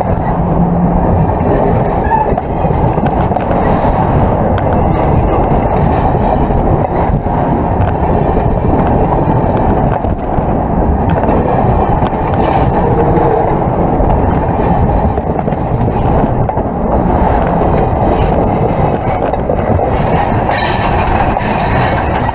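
Railroad cars' steel wheels rolling on the rails directly overhead, heard from between the rails: a loud, steady rumble with clacking as the wheelsets pass.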